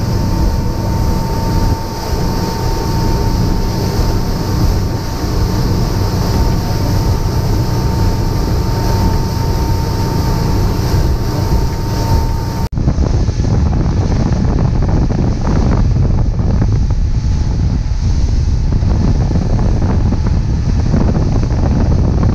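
Sea Fox cuddy cabin boat running at speed: steady engine and hull noise with the rush of wake and spray, and wind buffeting the microphone. An abrupt change partway through leaves a heavier, lower wind-and-water rumble.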